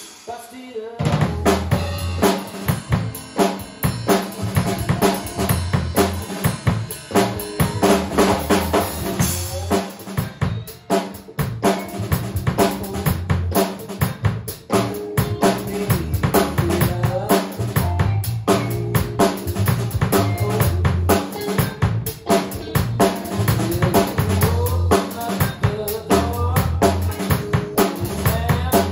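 Drum kit playing a steady blues groove of kick drum, snare with rimshots and cymbals, along with a band track carrying bass and guitar lines. The music drops out briefly at the start and comes back in about a second in.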